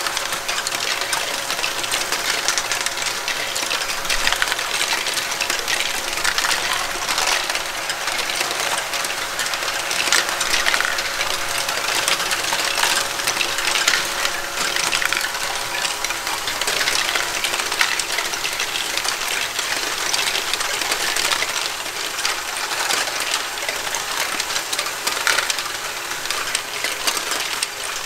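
Lego Great Ball Contraption modules running together: a steady clatter of small plastic Lego balls rolling, dropping and knocking through plastic mechanisms, over a steady whine of small Lego motors and gears.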